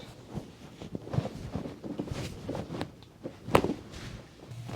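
Soft shuffling steps and scattered knocks of movement around a treatment table, with one sharp click about three and a half seconds in.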